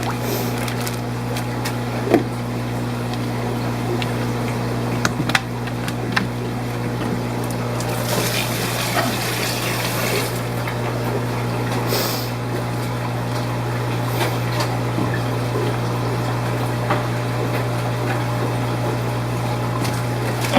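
Aquarium fish-room pumps humming steadily under running water. A few sharp clicks and knocks come in the first few seconds, and a louder wash of water hiss swells about eight seconds in for a couple of seconds.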